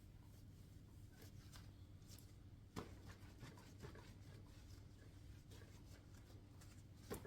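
Faint rubbing of a cloth polishing a metal two-stroke expansion chamber by hand, with a light knock about three seconds in and another near the end, over a low steady hum.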